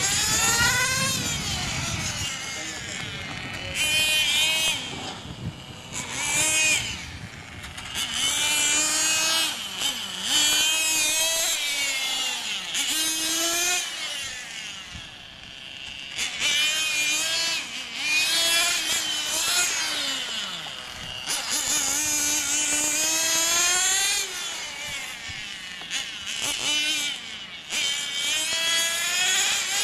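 Radio-controlled racing motorcycles running laps, their small motors revving up and down in pitch over and over as they accelerate down the straights and slow for the corners, sometimes more than one at once.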